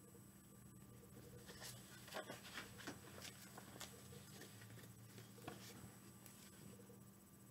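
Near silence, with faint paper rustles and small clicks as a picture book's pages are handled and turned, over a low steady hum.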